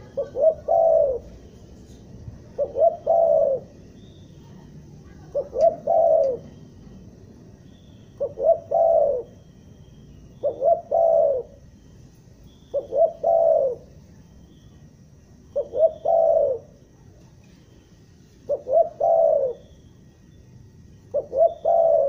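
Spotted dove (tekukur) cooing over and over: each call opens with one or two short stuttering notes and runs into a longer coo, about every two and a half seconds, nine calls in all.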